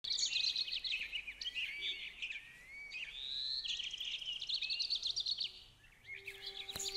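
Forest birdsong: several birds chirping, trilling and whistling in quick overlapping phrases, thinning briefly twice. Near the end a low steady tone comes in, and there is a single click.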